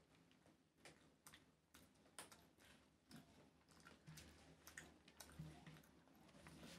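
Faint, irregular soft clicks and ticks of fingers gathering and mixing cooked rice on a banana leaf.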